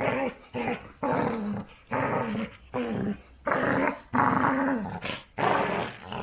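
Dogs growling and snarling in rough play-fighting: a rapid string of short growls, one after another with brief gaps.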